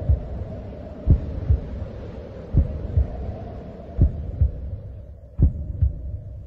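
Slow heartbeat-like thumping, about four double beats of low thumps, roughly one every second and a half, over a low steady hum that starts suddenly and fades out near the end.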